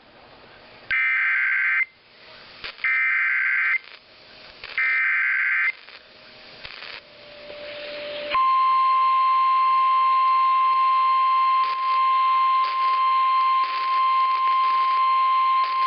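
Emergency Alert System activation received over radio. Three short bursts of screeching data header come about two seconds apart. Then, about eight seconds in, a long steady single-pitch alert tone starts, broken by brief reception dropouts, announcing a severe thunderstorm warning.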